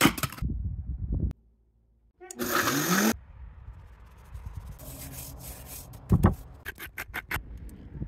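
An axe strike splitting a log of firewood, then a string of short cooking-prep sounds: a loud rushing burst with a rising tone about two and a half seconds in, and a thud followed by a quick run of sharp clicks near the end.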